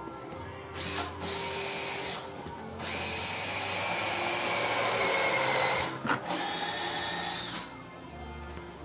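A small electric motor whining in three runs, about a second and a half, three seconds and a second and a half long, the long middle run sinking slightly in pitch.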